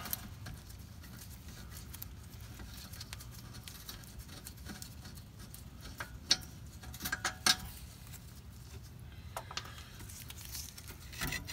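Scattered light clicks and knocks of hand work on a rear brake caliper as its upper mount bolt is taken out and the caliper is freed, the sharpest two about six and seven and a half seconds in, over a faint steady low hum.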